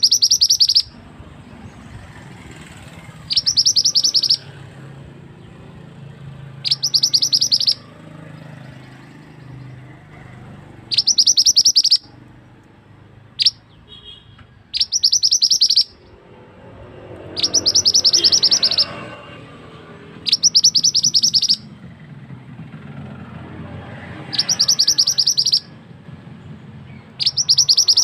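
Male mandi darah (mantenan) bird calling: high-pitched, rapid trilled bursts of about a second each, repeated every few seconds, about nine in all, with one longer burst about halfway through. It is a recorded lure call ('suara pikat') used to draw birds in.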